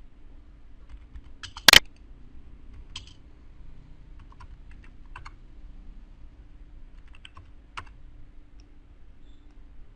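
Scattered clicks of a computer mouse and keyboard: one sharp click about two seconds in, then a handful of lighter clicks, over a faint steady hum.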